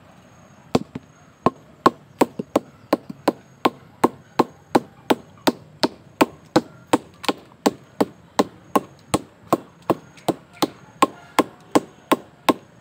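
A wooden stick repeatedly knocking a sugar palm flower stalk (manggar aren). The knocks start about a second in, then keep up an even beat of about three a second. This is the gentle beating that bruises the stalk so it will give sugar palm sap (nira).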